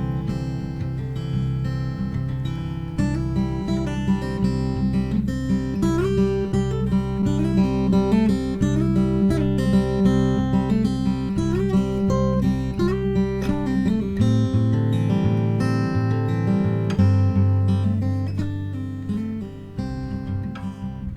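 Acoustic guitar music, strummed and picked over a steady bass line.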